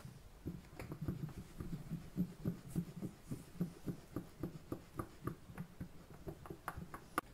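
Rabbit joints and seasoned flour being shaken in a lidded bowl, tumbling against the sides in a steady rhythm of dull thuds, about three a second, with a few sharper knocks.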